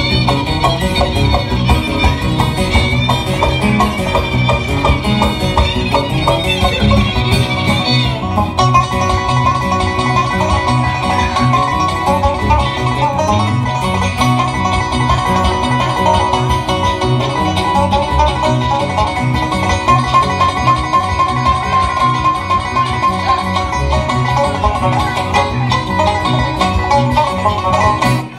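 Live bluegrass band playing an up-tempo instrumental on fiddle and guitars, with a steady strummed rhythm under the lead; the lead line changes about eight seconds in.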